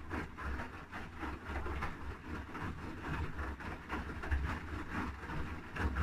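Haier I-Pro Series 7 (HW80-B14979) front-loading washing machine drum tumbling wet laundry in water. Sloshing and swishing come with low thuds as the clothes drop, repeating at an uneven pace.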